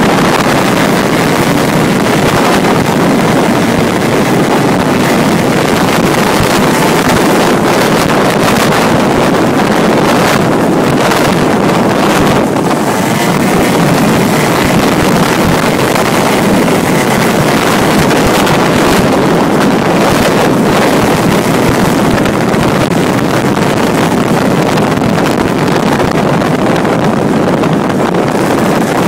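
Honda Dio ZX 50 cc two-stroke scooter engine of a road-legal kart running hard at speed, heard close up, mixed with heavy wind buffeting on the microphone.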